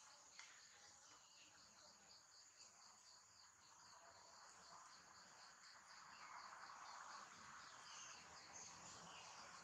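Faint insect chirping, high-pitched pulses repeating steadily about four or five times a second, over a soft background hiss that grows a little louder about halfway through.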